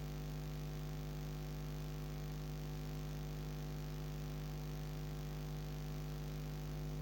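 Steady electrical hum: a low buzz with evenly spaced overtones, unchanging, with nothing else sounding.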